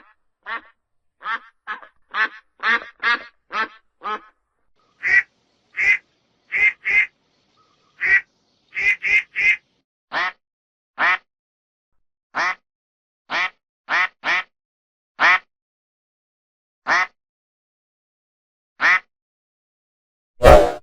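A duck quacking in a long series of short, single quacks. The quacks come rapidly at first, several a second, then slow to about one a second and grow further apart toward the end. A single much louder burst comes near the end.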